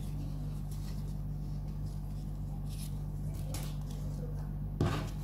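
Paper and a clear plastic sheet being handled, faint rustling over a steady low hum, with a single knock near the end.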